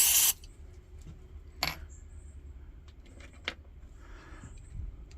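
A short spray hiss cuts off abruptly just as it begins, followed by a few light metallic clicks and taps as small lantern parts are handled.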